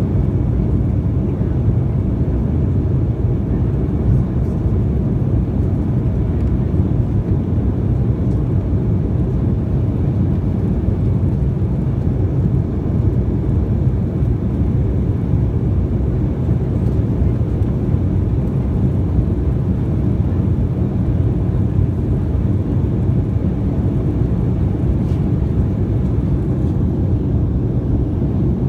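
Steady low rumble of an Embraer 195 jet airliner heard from inside the passenger cabin: its GE CF34 turbofan engines and the airflow, with no change in level.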